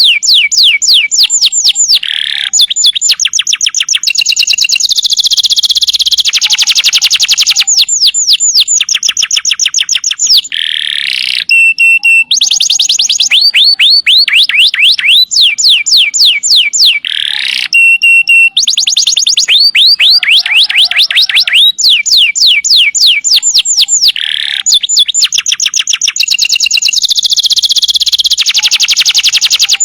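Domestic canary singing loudly in long runs of rapid trills, each a fast string of identical falling notes, switching to a new trill every second or two.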